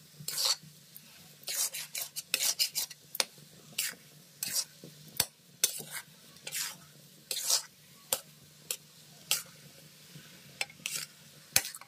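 Flat steel spatula scraping and turning crumbly moong dal roasting in an iron kadhai: short, irregular scrapes, roughly one or two a second, with a sharper knock near the end. The dal is still yellow, early in a long, slow roast on a low flame.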